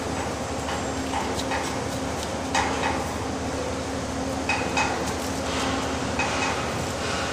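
A mason's steel trowel knocking and scraping on lightweight concrete blocks and mortar while a block is set and levelled: irregular knocks, about one or two a second, some with a short metallic ring, over a steady low hum.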